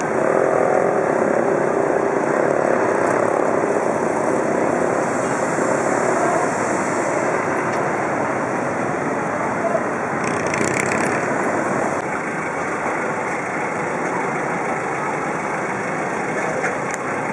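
Busy street ambience: steady traffic noise of vehicle engines, with the voices of a crowd of people mixed in.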